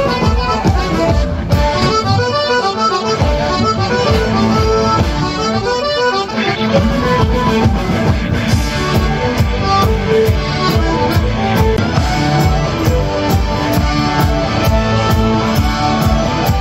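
Live folk band playing a lively tune led by accordion, with fiddle and a steady drum beat.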